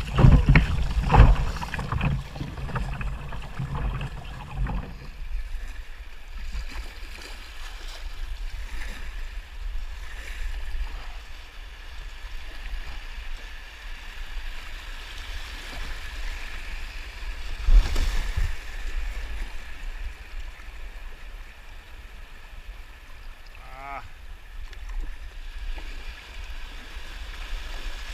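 Rushing river water around a kayak running small rapids, with wind buffeting the microphone, choppiest and loudest in the first few seconds and again briefly about two-thirds in. A short warbling chirp is heard near the end.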